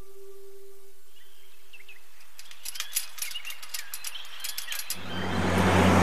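A singing bowl's ringing tone fades away, giving way to birds chirping and a run of quick ticks in a street. About five seconds in, a car approaches and grows loud at the end.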